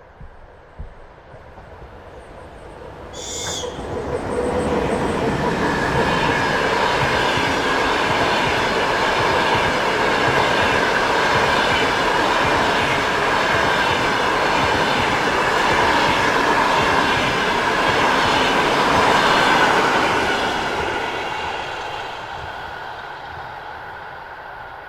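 Passenger train passing at close range: the noise builds over a few seconds, holds loud with the rumble of the wheels and a steady high ringing from wheels and rails, then fades away near the end. A brief sharp high sound comes about three seconds in, just before the train arrives.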